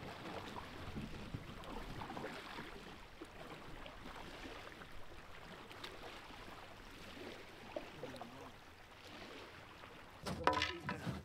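Lake water lapping at the shore, with faint splashes of canoe paddles dipping in the water. A short voice is heard about ten seconds in.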